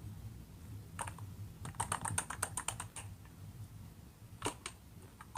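Typing on a keyboard: a quick run of key clicks lasting about two seconds from a second in, then a couple of single clicks near the end, over a faint low hum.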